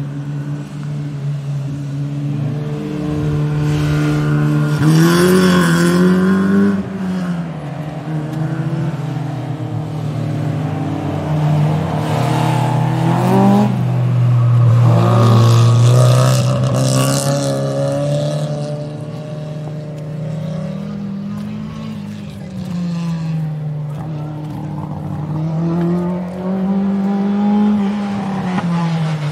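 Racing car engines at speed: a steady engine note under cars passing and revving, the pitch rising and falling several times. It is loudest about five seconds in and again around fifteen seconds.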